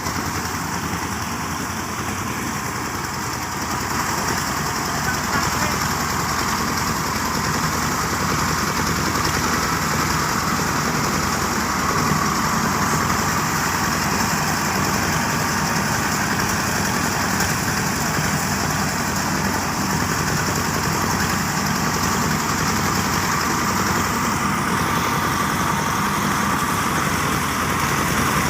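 Diesel-powered rice threshing machine running steadily, its engine going without a break and getting slightly louder about four seconds in.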